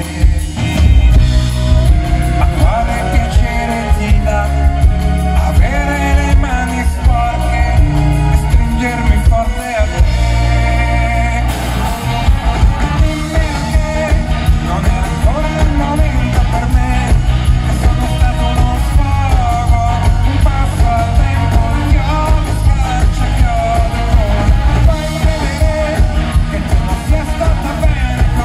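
Live rock band performing, recorded from the audience: a man singing lead over electric bass, drums and guitars, with a heavy, booming low end. The band drops back briefly about ten seconds in, then comes back in full.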